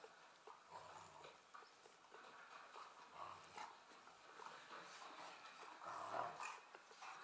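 Faint sounds from a dog, with small clicks and rustling; a little louder about six seconds in.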